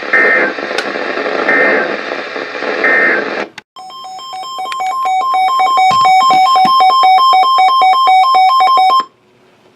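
NOAA Weather Radio broadcast hiss carrying three short warbling SAME data bursts about a second apart: the end-of-message code closing a warning. The broadcast then cuts out and an electronic alert alarm beeps rapidly, about four beeps a second, for about five seconds, growing louder before it stops suddenly.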